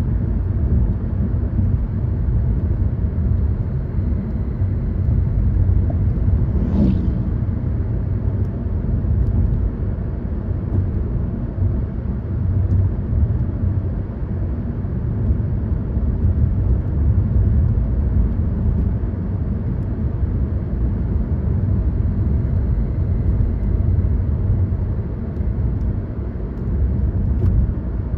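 Car driving along at steady speed: a constant low rumble of engine and road noise, with a brief faint chirp about seven seconds in.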